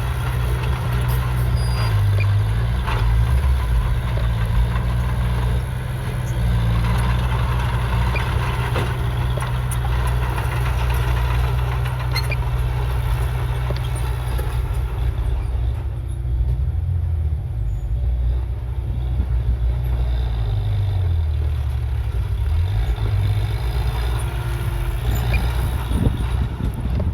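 Heavy diesel earthmoving machinery running: a deep, steady engine drone with scattered clanks, the engine note shifting briefly between about 20 and 24 seconds in.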